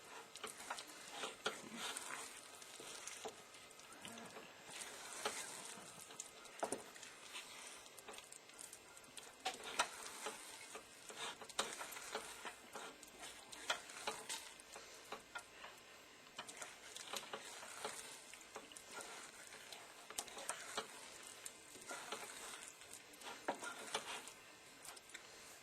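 A spoon or spatula stirring and folding a thick chocolate mixture with chopped hazelnuts in a pan, making irregular soft scrapes and clicks against the pan over a faint sizzling hiss.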